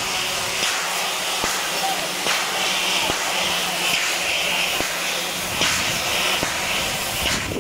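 Italian FS Class 741 steam locomotive hissing steam steadily, the hiss swelling in several surges through the middle.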